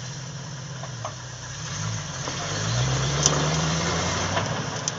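Off-road 4x4's engine idling, then revving up about two seconds in as the vehicle is driven forward over a rock, and easing back near the end.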